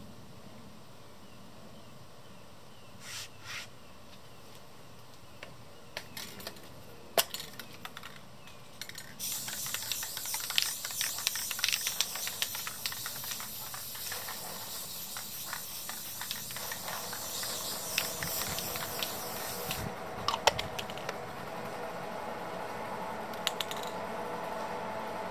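A few clicks and taps, then a Rust-Oleum aerosol spray paint can sprays in a hissing stream with short breaks for about ten seconds. From about two-thirds of the way in, a steady engine hum from a leaf blower sets in underneath and keeps going.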